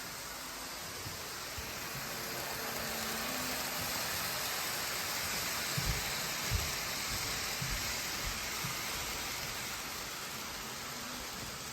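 N scale model train running on the layout: a steady hissing whir that swells as the train comes close and fades as it moves away, with a few light clicks and knocks from the wheels on the track.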